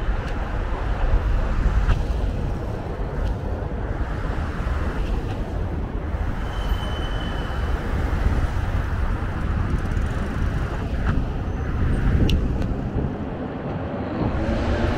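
Steady, loud rush of traffic on a busy multi-lane highway. A brief high-pitched tone sounds about seven seconds in, and a vehicle's engine note rises near the end.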